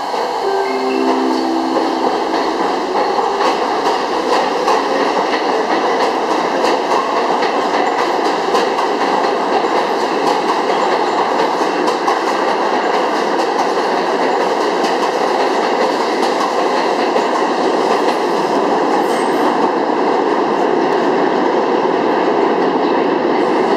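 New York City subway train pulling out of the station and running past: a steady loud rumble of steel wheels on rail, with rapid clicks as the wheels cross rail joints and short stepped motor tones in the first second or two.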